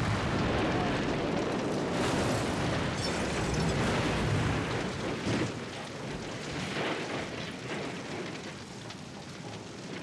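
Car bomb explosion: a loud, sustained blast that dies down about five seconds in to the lower, steady noise of the burning car.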